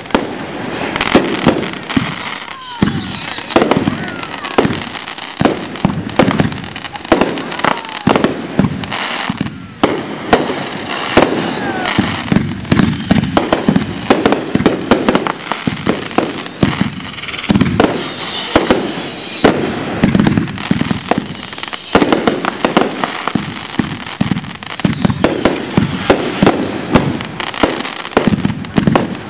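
Consumer fireworks finale of cakes and reloadable aerial shells firing and bursting in rapid, continuous succession, dense overlapping bangs with no pause. A few falling whistles sound among them.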